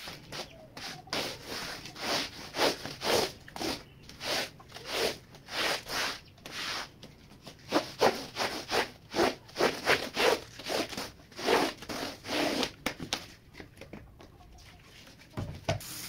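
Rubber squeegee pushed in quick strokes across a wet, soapy rug, a rubbing, wet scrape about twice a second that grows softer near the end.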